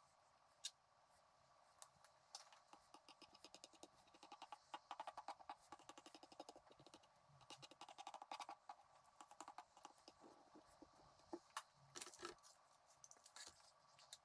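Faint, rapid light clicks and scrapes of a metal spoon pressing cake crumbs around the base of a cake on its cake board, in dense runs through the middle and a few sharper clicks near the end.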